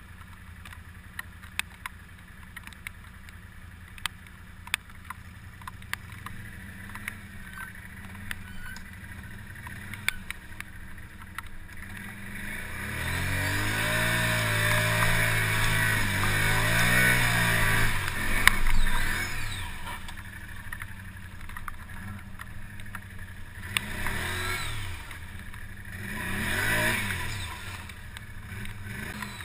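ATV engine idling with scattered clicks and knocks, then revving hard for about five seconds while the quad ploughs through a deep mud hole, with a loud knock near the end of the run. Two shorter revs follow near the end.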